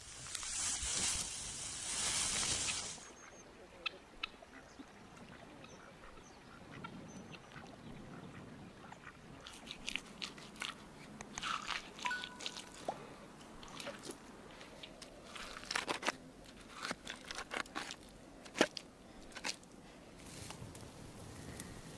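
Dry straw rustling right against the microphone for the first three seconds. Then a hand tool scraping and chipping into packed earth, with irregular crunches and sharp knocks that are busiest in the second half.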